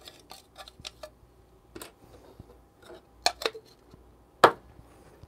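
Clear plastic coffee-grounds bin being scraped and tapped clean of grounds: a scatter of small plastic clicks and taps, with a few sharper knocks about three and a half seconds in and one more a second later.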